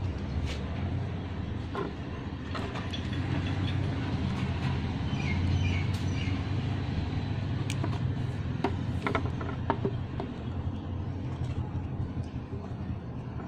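Low, steady rumble that swells a little midway, with scattered light clicks and taps as multimeter probes and a wiring connector are handled.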